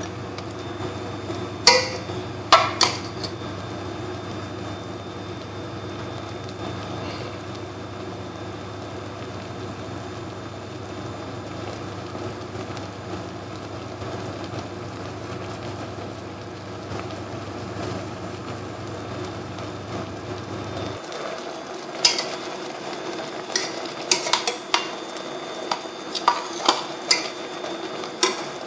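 Pork braising in soy sauce in a pan, sizzling steadily, with a utensil knocking and scraping against the pan a few times about two seconds in and again repeatedly over the last seven seconds. A low hum underneath stops about two-thirds of the way through.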